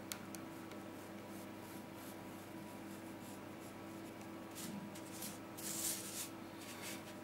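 Pencil scratching lightly on paper against a plastic ruler, with a plastic set square sliding over the paper about five to six seconds in. A faint steady hum lies underneath.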